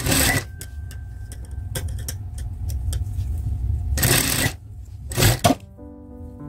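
Industrial lockstitch sewing machine stitching in three short bursts, each well under a second, over the steady hum of its running motor.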